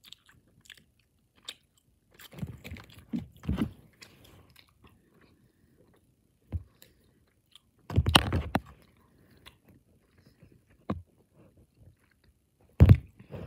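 A person chewing soft, chewy gummy candy close to the microphone, in irregular bursts, with a few short knocks from handling things near the microphone.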